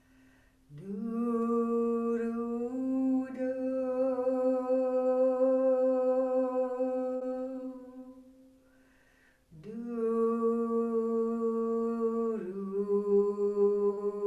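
A woman's voice humming and toning wordless long-held notes. The first starts about a second in, rises slightly and fades away; after a short pause for breath a second note enters and steps down in pitch near the end.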